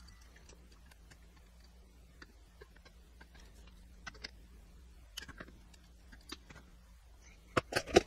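Light metal clicks and scrapes from a bent-wire improvised pick working inside an old Southern Pacific railroad padlock clamped in a vise. Scattered ticks start about halfway through, and a few louder clacks come near the end.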